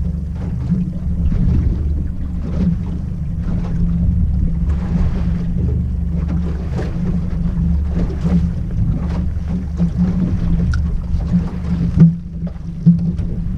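Outboard motor running steadily at slow trolling speed, a low hum under wind and water splash. Two sharp knocks come near the end.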